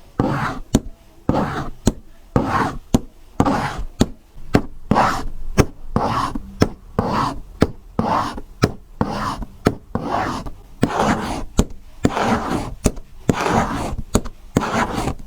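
Simulated heart sounds: an even beat of about 85 per minute. Each beat has a sharp click and a rasping, whooshing murmur.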